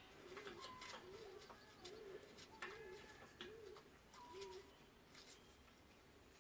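A pigeon cooing faintly in the background: a steady run of short, low coos, about six of them, stopping a little past four seconds in. Faint scattered clicks are heard alongside.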